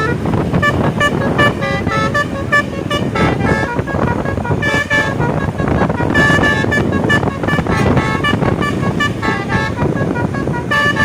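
Tour bus's telolet basuri multi-tone horn playing a quick tune of short notes that change pitch from note to note, over steady background noise.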